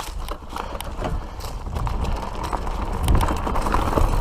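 Mountain bike riding fast down a rough, rocky trail: tyres crunching over rock and dirt with frequent clatters and knocks from the bike, over a low wind rumble on the microphone that grows louder as speed builds.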